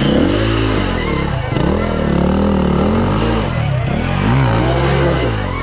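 Single-cylinder dirt bike engine revving up and down repeatedly, its pitch rising and falling with the throttle, as the bike works its way over rough trail.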